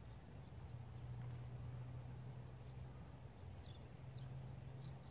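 Faint outdoor ambience: a steady high insect trill, likely crickets, over a low steady hum, with a few faint short high chirps near the end.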